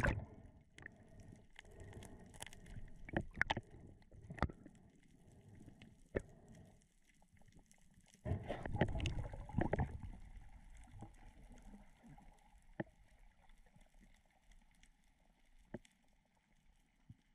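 Water sloshing and gurgling around an action camera in a waterproof housing, with scattered sharp clicks. A louder rush of water comes about eight seconds in and lasts a couple of seconds.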